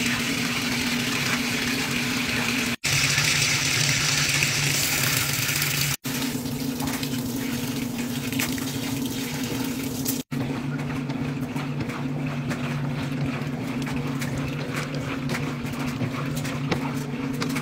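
Top-loading washing machine with a center agitator: water rushing into the drum over a steady motor hum, then the agitator churning the sudsy load with splashing. The sound drops out briefly three times at edit cuts.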